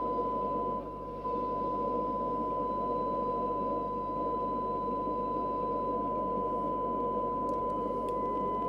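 Steady 1 kHz test tone from the AKD 4001 4-metre FM transceiver's loudspeaker: the demodulated tone of an S9-level signal-generator carrier, over a rough, noisy undertone. The level dips briefly about a second in.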